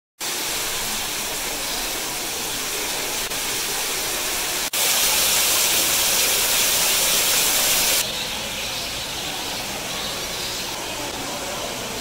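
Indoor waterfall pouring and splashing in a steady rush of water, louder for a few seconds in the middle and dropping back about eight seconds in.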